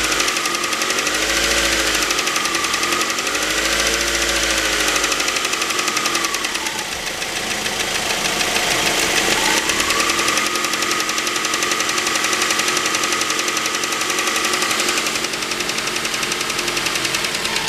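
The 2.0 L LF inline-four of a 2006 Mazda 3 running, with a fast, light ticking over the engine note. It is revved up and down three times in the first few seconds, drops lower for a few seconds around the middle, then holds a steady speed.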